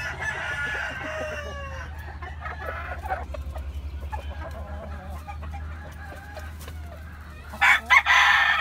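Sweater gamefowl, a rooster and hens, clucking and calling, with a loud burst of calling near the end.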